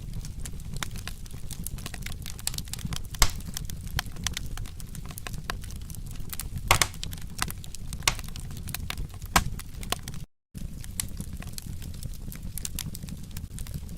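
Wood fire crackling, with irregular sharp pops over a steady low rumble of the flames; the loudest pops come about three seconds in, near seven seconds and a little after nine seconds. The sound cuts out completely for a moment about ten seconds in.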